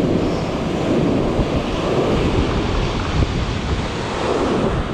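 Ocean surf breaking and foamy whitewater washing up the beach in a steady rush, with wind buffeting the microphone.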